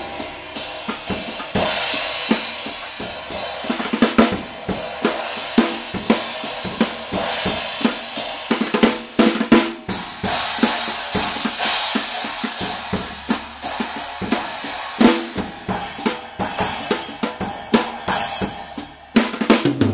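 Drum kit played with nylon brushes: a continuous pattern of strikes on snare, toms, bass drum and cymbals. The cymbals are repaired, modified ones cut with vent holes and slots, giving a dense ringing wash under the hits.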